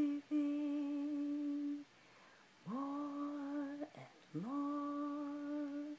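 A woman humming long held notes on one steady pitch, three in a row with short pauses between; the second and third slide up into the note as they begin.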